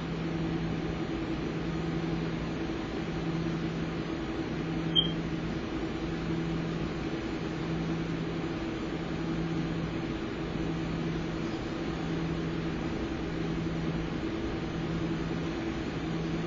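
Partly disassembled Sony Vaio laptop running with its screen dark: a steady hum from the spinning hard drive, with a low tone that pulses on and off about every second and a half and one short sharp click about five seconds in. The uploader takes the sound for the laptop having passed its POST and sitting waiting.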